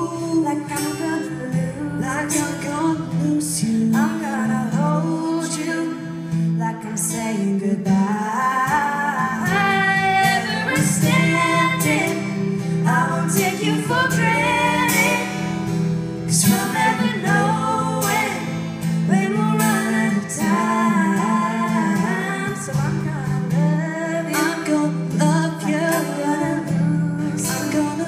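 Live acoustic pop duet: a female and a male voice singing into microphones over a strummed acoustic guitar.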